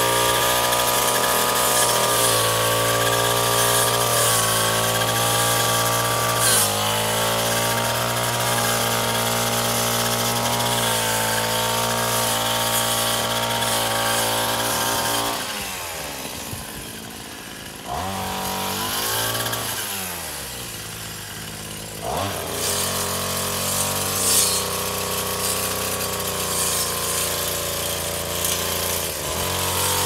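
Wild Badger 26cc two-stroke multi-tool with a brush-cutter blade running at full throttle while cutting grass. About halfway through the throttle is let off and the engine winds down toward idle, is revved briefly, drops again, then comes back up to cutting speed.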